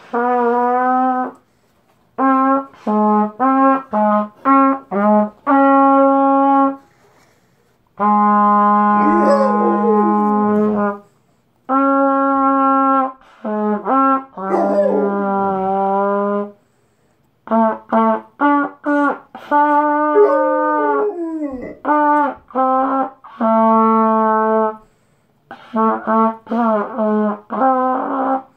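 Trumpet played in phrases of short and held notes with brief pauses between them, while a dog howls along, its voice gliding up and down over the trumpet several times.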